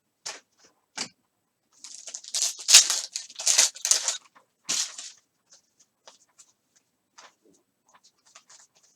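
A foil trading-card pack wrapper torn open and crinkled, a noisy stretch of about three seconds starting about two seconds in, between light clicks and ticks of cards being handled.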